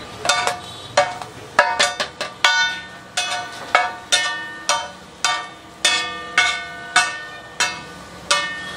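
A flat metal spatula striking and chopping on a large iron tawa griddle as rice pulav is stirred. It makes sharp ringing clangs about twice a second at uneven intervals, and each clang rings at a slightly different pitch as it fades.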